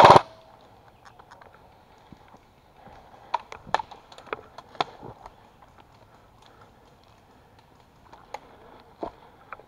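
A short full-auto burst from an airsoft rifle cuts off right at the start. Then come quiet scattered footsteps, twig snaps and light knocks of gear on the forest floor, bunched a few seconds in and again near the end.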